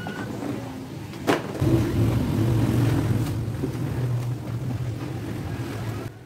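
A sharp click, then a motor starts and runs with a steady low hum, cutting off shortly before the end.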